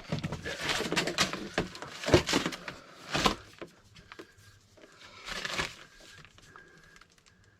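Irregular rustling, crinkling and scraping with a few sharp knocks from hands-on work with tools and materials, loudest about two and three seconds in. There is no drill running.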